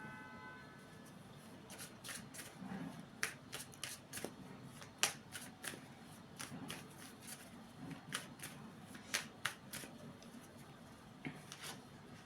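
A deck of fortune-telling cards being shuffled and handled: a string of short, crisp card flicks and slaps at irregular intervals.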